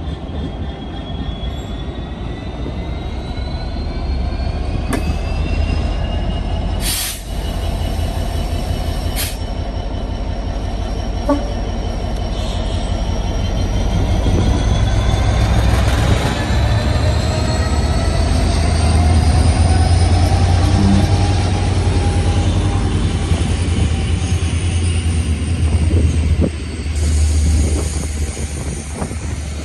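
Class 66 diesel locomotive pulling away with a passenger train: its engine runs with a deep, loud drone while a whine climbs steadily in pitch as the train gathers speed. There are a few sharp knocks in the first ten seconds, and the coaches' wheels roll past near the end.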